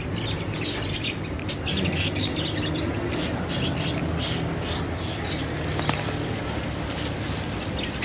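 Caged budgerigars chirping and chattering: many short, high chirps overlapping throughout, over a steady low hum.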